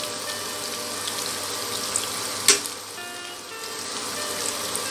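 Sliced onions, capsicum and chillies sizzling steadily in hot oil in a steel kadai as they are stirred with a steel spoon, with one sharp clink of the spoon against the pan about halfway through.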